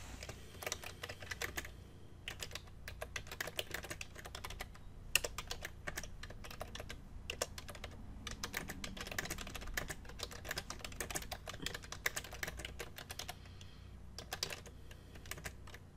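Typing on a computer keyboard: quick runs of key clicks with a few short pauses.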